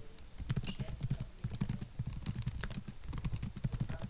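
Rapid typing on a computer keyboard: fast, irregular keystrokes, each a sharp click with a low thud.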